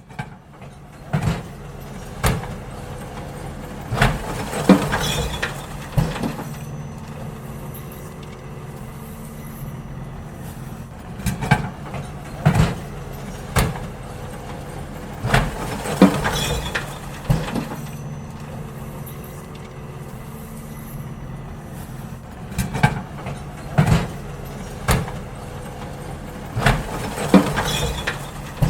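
Garbage truck's engine running steadily while it empties wheelie bins, with clusters of loud clanks and bangs as the bins are lifted and knocked against the hopper, returning about every ten seconds.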